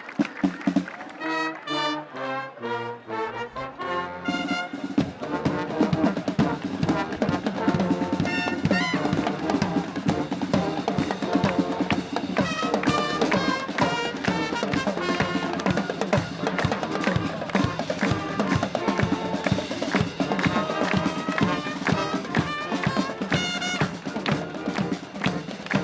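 Marching wind band playing: separate brass chords start about half a second in, then from about five seconds in a steady drumbeat drives the full band of trumpets, trombones and percussion.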